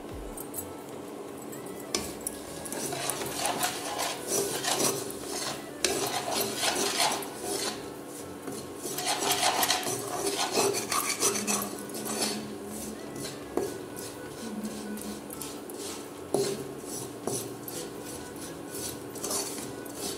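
A spatula scraping and stirring crystallising sugar around a kadhai, in repeated rasping strokes that start about two seconds in. The boiled sugar syrup is being stirred off the heat until it cools and dries back into powdered sugar (tagar, or bura).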